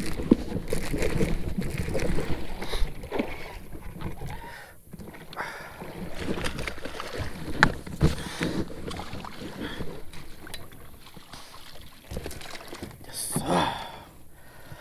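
A bass being played and landed from a fishing kayak: a baitcasting reel cranking, water splashing as the fish is brought alongside, and irregular knocks and rustles of the rod and gear against the hull. Near the end the landing net scoops the fish out of the water.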